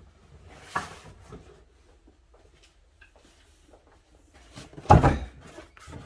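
Cardboard box set down on a wooden workbench with one loud thud about five seconds in, followed by a smaller knock. Before it come a few light knocks and shuffling as it is carried up.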